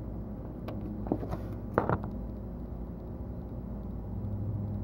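A few light clicks and taps from trading cards being handled, the sharpest a little under two seconds in, over a steady low hum.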